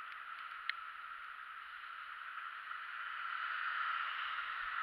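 Steady hiss of a bicycle ride on a wet street, picked up by a handlebar-mounted camera, with a few short ticks in the first second; the hiss grows louder toward the end.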